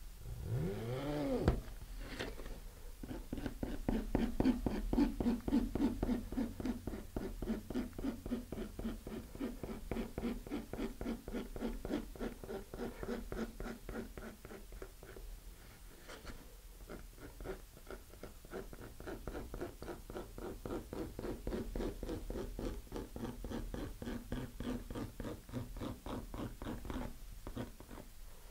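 A hobby knife blade scratching cross-hatch score lines into the root edge of a fiberglass rocket fin, in a rapid, continuous run of short strokes. This scuffs the bonding surface so epoxy will grip. A short squeak that rises and falls comes about a second in.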